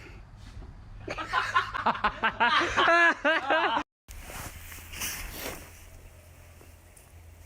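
A person laughing hard in quick, rapid bursts for about three seconds, which stops abruptly.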